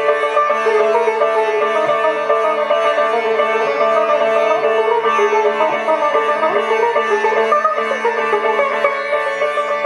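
Sitar playing a flowing passage of plucked, gliding notes in Raag Shree, over a steady drone, without tabla.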